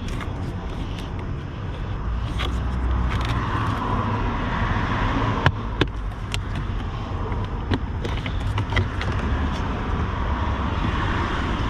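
Sharp plastic clicks and knocks from the cabin air filter's access cover being unclipped by hand, the loudest about five and a half seconds in, over a steady low rumble.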